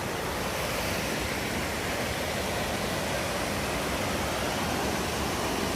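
Waterfall rushing steadily, close by at the top of the falls.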